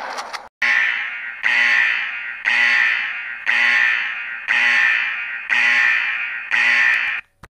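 An alarm sounding seven times, about once a second: each tone starts sharply and fades away, signalling an emergency. A brief noise comes just before the first tone.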